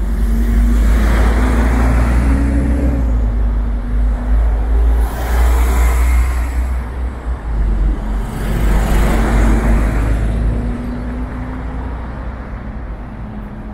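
City bus riding in traffic: a steady, heavy low rumble of engine and road noise, with an engine hum that drifts up and down in pitch. Three swells of rushing noise rise and fall over it, each lasting a second or two.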